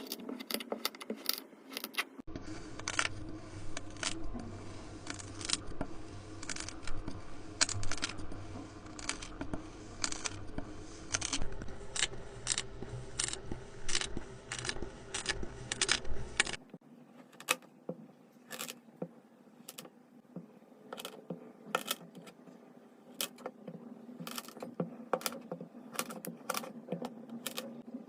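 Knife cutting and crumbling kinetic sand: a dense run of crisp, irregular crunching clicks. The tone changes abruptly twice.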